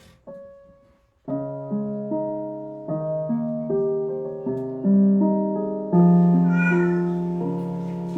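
Piano music: notes and chords struck and left to ring and fade, with a brief wavering higher sound about six seconds in.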